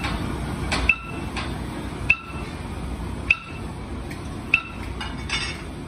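Four sharp metal-on-metal clinks, evenly spaced about a second and a quarter apart, each with a short high ring, over a steady low workshop rumble.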